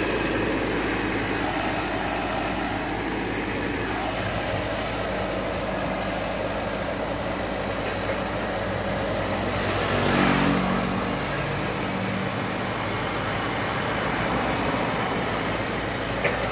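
Toyota forklift's engine running steadily as it drives along the road, heard from close behind over wind and road noise. About ten seconds in, the sound swells louder for a couple of seconds.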